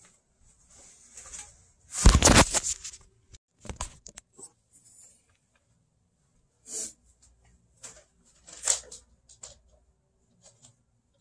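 Rustling and handling noise close to the microphone as a person moves about right next to it, with scattered clicks and knocks. The loudest is a burst of rustling about two seconds in, lasting about a second.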